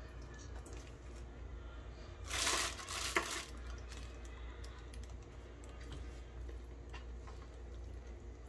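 Hands tying kitchen string around a rolled raw chicken on a plastic cutting board: soft handling clicks and rustles over a low steady hum, with one louder rustle about two and a half seconds in and a sharp click within it.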